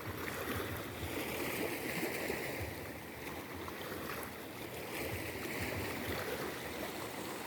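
Sea surf washing against the shore: a steady rush of water that swells and eases gently.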